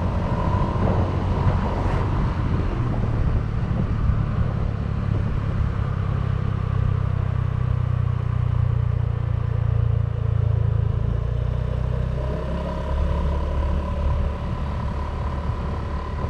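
Honda Vario 125 scooter's single-cylinder engine running under way through a KZR Puresound aftermarket exhaust, a steady deep exhaust note. About twelve seconds in the engine note drops lower and a little quieter as the throttle eases off.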